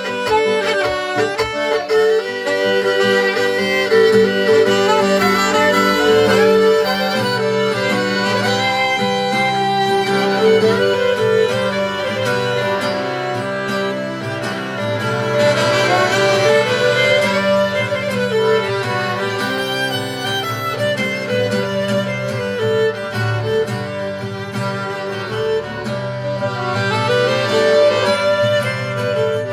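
Slow Irish-style reel played by a folk band of violin, accordion, saxophone and guitar, with the violin to the fore.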